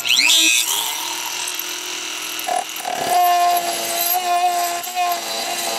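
Dremel rotary tool with a cut-off wheel starting up with a rising whine, then running steadily as it cuts into a plastic kayak hull.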